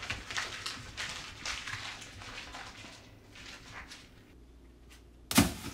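Sheets of script paper rustling and shuffling in the hands, in irregular bursts that die down after about four seconds. Near the end, one short, loud thump.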